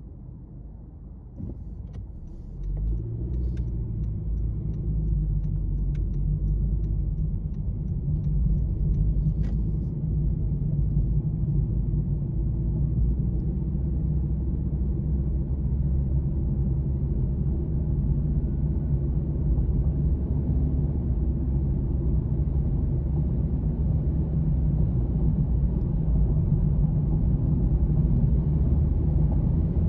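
A steady low engine rumble, like a motor vehicle running nearby, that sets in about two and a half seconds in and slowly grows louder.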